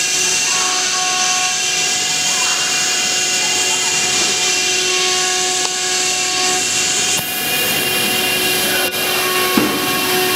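CNC router running: a steady spindle whine of several tones over machine noise, with a brighter hiss coming in about two-thirds of the way through.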